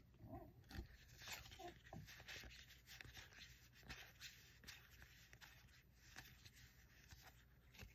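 Near silence with faint soft rustles and light ticks of Magic: The Gathering cards sliding against each other as a pack is leafed through by hand.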